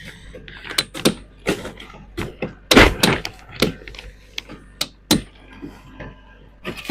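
A run of irregular knocks and thuds, the loudest about three seconds in, with some scraping between them.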